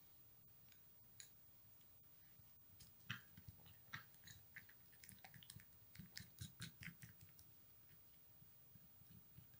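Faint clicking and scraping of a plastic spoon stirring a thick paste of powdered milk, legume powder and milk in a small glass bowl, with a quick run of soft clicks from about three seconds in that dies away near the end.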